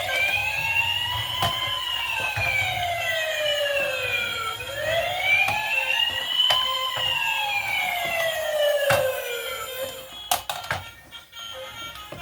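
Electronic siren of a toy emergency vehicle wailing: it rises and falls slowly twice, about five seconds per cycle, then stops about ten seconds in, followed by a few clicks.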